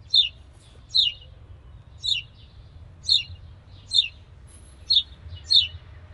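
A bird calling over and over: a short, high note falling in pitch, repeated about once a second.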